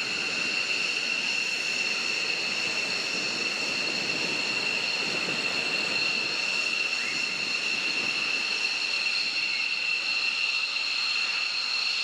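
Steady high-pitched whine of jet turbines running, with an even rush of air beneath it.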